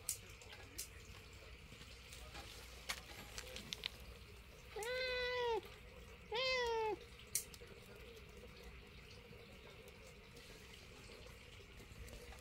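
Tabby cat meowing twice, each call a little under a second long, the second following about a second after the first, with a few faint clicks around them.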